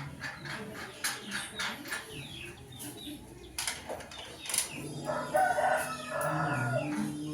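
A rooster crowing, one drawn-out crow starting about five seconds in, over scattered light clicks and knocks.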